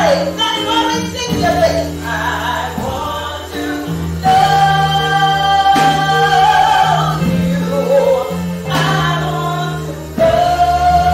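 Gospel music: choir singing with instrumental backing, voices holding long notes over sustained bass notes, growing louder about four seconds in.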